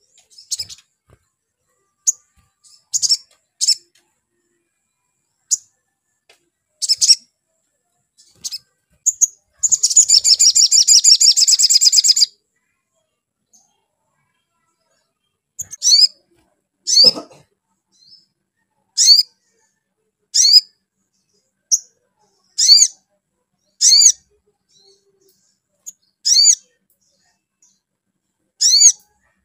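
Olive-backed sunbird giving sharp, high chirping calls every second or two, with a fast, buzzy trill lasting about two and a half seconds around a third of the way in. A brief low thump just past halfway.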